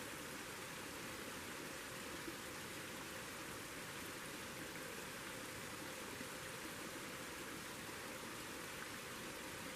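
Steady, even rush of a small creek running, with no breaks or changes.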